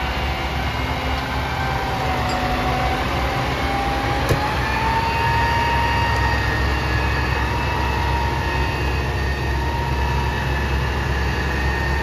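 Crane truck's diesel engine running steadily under load, with a hydraulic whine from the crane that rises slowly in pitch about four seconds in as it lifts a cut section of tree trunk. A single sharp click about four seconds in.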